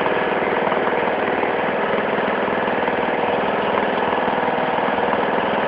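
Toro Wheel Horse 16-44 HXL lawn tractor's 16-horsepower engine running steadily at an even speed.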